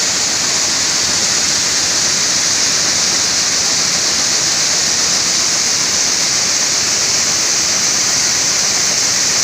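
Coffee bean sorting sieve machine running, beans rattling across its screen as small beans are separated from large ones: a loud, steady, high-pitched rush.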